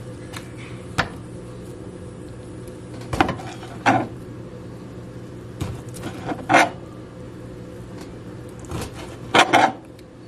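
A cleaver cutting through raw chicken breast and knocking on a plastic cutting board: about seven irregular knocks, some in quick pairs, over a steady low hum.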